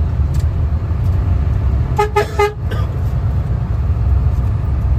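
Steady low rumble of the Hino AK bus's front-mounted engine, heard from inside the cabin. About two seconds in, a single-tone vehicle horn gives three quick toots.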